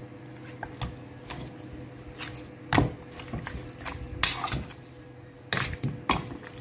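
Metal fork turning chunks of raw oxtail through a thick wet marinade in a plastic bowl: irregular clicks and scrapes of the fork against meat and bowl.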